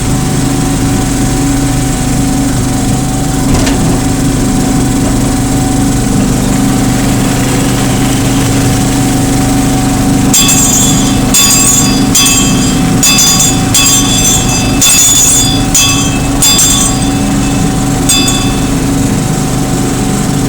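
Engine of a small 18-inch gauge hydrostatic-drive locomotive running steadily while it travels. About halfway in, a run of short high-pitched squeals comes and goes for several seconds.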